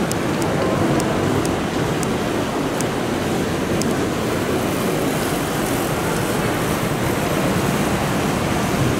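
Steady rushing outdoor noise with a few faint ticks in the first four seconds.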